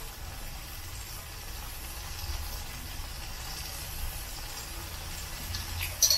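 Cast-iron skillet of saucy shredded plantain peel simmering on a low gas flame: a faint steady hiss over a low rumble. A light spoon clink comes near the end.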